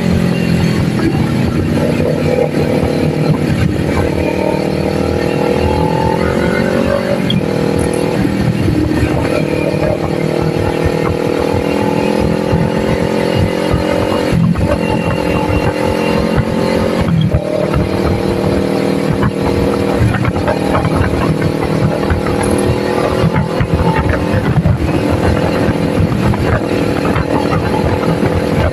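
Kawasaki Ninja 400's parallel-twin engine pulling under way, its pitch climbing steadily and dropping sharply several times as the rider shifts gears.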